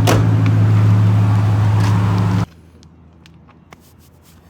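Car wash equipment running: a steady loud hum with a hiss of spray or air over it, cutting off abruptly about two and a half seconds in, followed by a few faint clicks.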